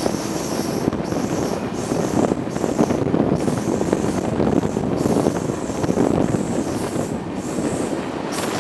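Freight train rolling at speed, heard from aboard one of its cars: a steady rumble and rattle of wheels and car body, with a faint high wheel squeal coming and going as the train rounds a curve.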